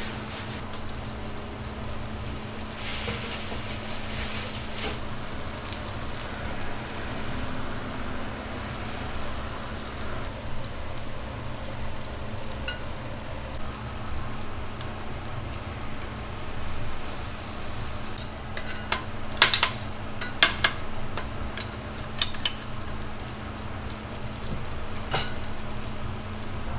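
Food sizzling on a flat-top griddle with a steady hum beneath. About two-thirds of the way through comes a cluster of sharp metallic clicks from a metal spatula against the griddle and the steel frames, then a couple of single clicks.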